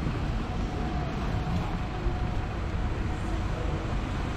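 Steady city street ambience in the rain: low traffic rumble under an even wet hiss, with no single event standing out.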